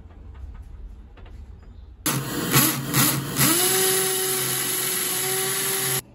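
Cordless drill boring a hole into a wall, with a vacuum cleaner's nozzle held under the bit to suck up the dust. After about two seconds of quiet the loud noise starts; it comes in uneven spurts at first, and then the drill's whine rises and holds steady, until everything cuts off suddenly near the end.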